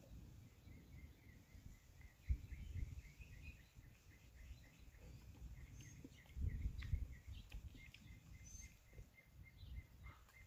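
Faint, rapid, steady chirping of a bird, about four chirps a second. Low rumbles on the microphone come about two seconds in and again around six to seven seconds in.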